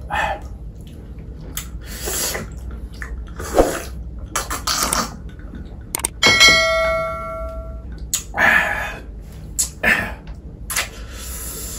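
Short scratchy noises every second or two, and about six seconds in a single struck metallic ding that rings for about a second and a half.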